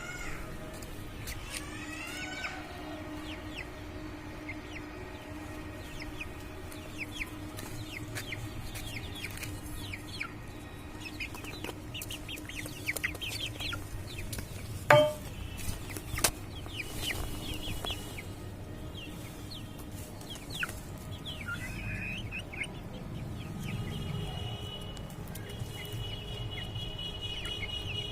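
Chickens clucking and chirping on and off, with one loud, sharp sound about halfway through.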